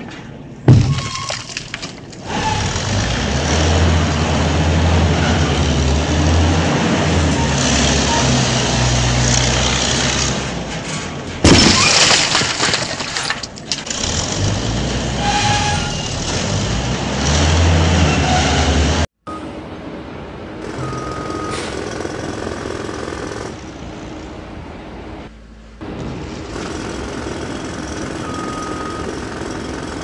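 Building demolition: a heavy wrecking-ball impact about a second in, then a long stretch of crashing, rumbling concrete and rubble, with a second big impact near the middle. After an abrupt cut, a quieter steady site noise follows, with a few short high beeps.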